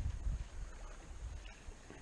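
Water lapping around a small plastic kayak on choppy lake water, with a low rumble that fades over the first second.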